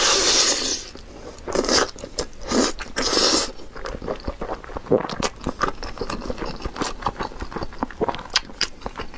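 Close-miked slurping of sauce-coated spicy noodles in a few loud bursts over the first three and a half seconds, then wet, clicky chewing of the noodles and chicken wing.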